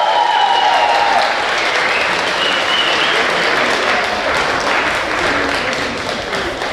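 Audience applauding in a large hall, loud at first and slowly dying down.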